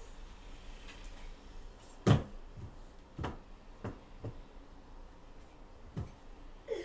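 A baby's hands slapping and knocking on a flat-screen TV and its wooden stand: one loud knock about two seconds in, then several lighter knocks spread over the next few seconds.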